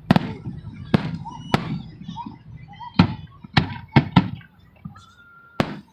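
Fireworks going off: about eight sharp bangs at irregular intervals, some in quick clusters, each with a short low rumbling tail.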